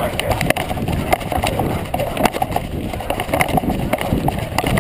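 Running footfalls of a canicross runner on grass and a dirt path, a steady string of irregular thuds, with the jostling of a body-mounted camera.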